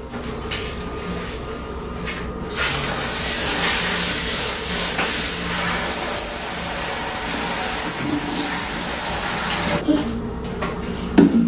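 Water spraying from a handheld shower head in a bathtub: a steady hiss that starts about two and a half seconds in and stops shortly before the end. A brief louder sound comes near the end.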